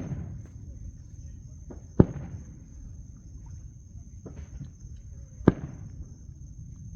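Three sharp bangs, at the start, about two seconds in and about five and a half seconds in, each trailing off in a short echo. A steady high-pitched whine runs beneath them.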